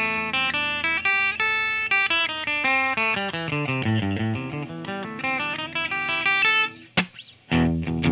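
Electric guitar playing a quick run of single picked notes that climbs and falls in pitch across the strings. About seven seconds in there is a click and a half-second gap, then the notes start again.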